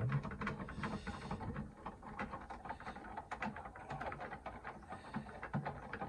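Small plastic clicks and ticks, coming quickly and unevenly, as a white plastic actuator rod is screwed by hand into a concealed toilet cistern's flush mechanism.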